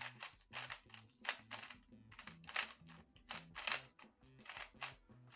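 Gan 13 MagLev magnetic speedcube being turned by hand: its layers click into place in quick, irregular runs of sharp clacks with short pauses between, the snap given by the cube's magnets. Low background music notes sit underneath.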